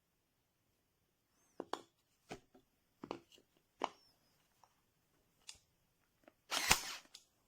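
Sharp clicks and knocks of a cordless staple gun being handled, about six in all, then a louder half-second burst about six and a half seconds in, followed by one more click.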